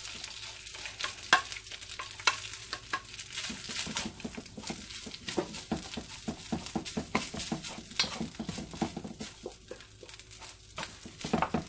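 White rice frying in a hot wok, sizzling steadily, while a spatula stirs and scrapes it against the pan in frequent short clicks and scrapes.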